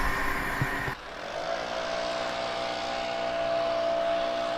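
The last second of a passing train, cut off abruptly. Then a steady droning whine with a clear pitch, which rises slightly and settles: an electric multiple unit approaching at a distance.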